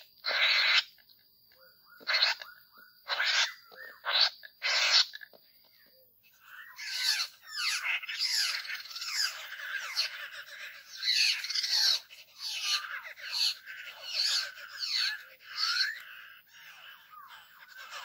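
A flock of laughingthrushes (poksay) calling. Several short, harsh, rasping calls come in the first five seconds, then from about six seconds on many birds break into a dense, overlapping chattering chorus with warbling, gliding notes.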